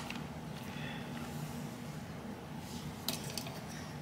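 Quiet handling of a Beretta 8045 Mini Cougar pistol over a steady low hum, with one light click about three seconds in.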